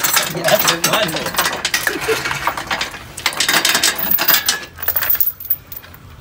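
Irregular metallic clinking and clattering of hand tools and metal parts being handled, dense at first and thinning out near the end.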